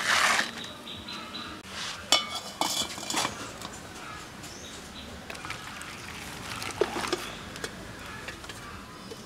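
Metal tongs clinking against an aluminium cooking pot as it is lifted and tipped to drain boiled arum stalks into a plastic colander: a few sharp clinks two to three seconds in and a couple more knocks about seven seconds in. A brief loud rush of noise comes right at the start.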